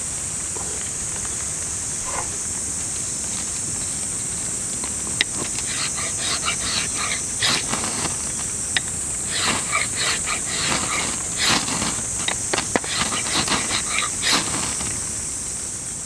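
Ferrocerium fire-starter rod scraped again and again onto a bundle of feather-stick shavings, throwing sparks to light them. The short, harsh rasps start about five seconds in and come in quick clusters, over a steady high hiss.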